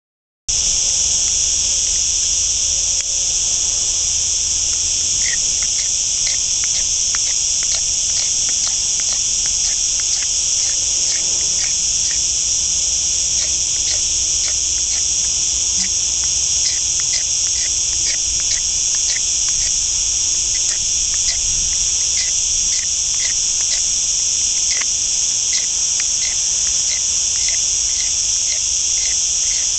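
Loud, steady, high-pitched insect chorus from a pine wood in summer, with faint regular ticks about twice a second through most of it.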